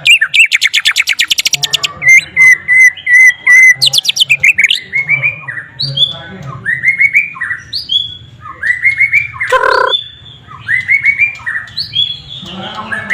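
White-rumped shama singing a varied song: a very fast trill at the start, then a run of short repeated notes, then a string of quick rising, sweeping phrases. The song is said to carry learned sikatan londo (flycatcher) phrases.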